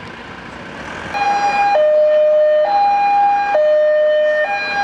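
Emergency vehicle's two-tone siren, starting about a second in and switching back and forth between a high and a low tone, each held just under a second.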